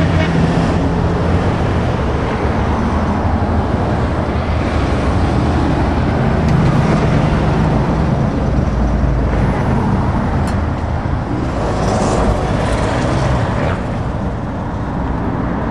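Road traffic passing close by: a line of heavy diesel trucks and cars going past one after another, with engine drone and tyre noise.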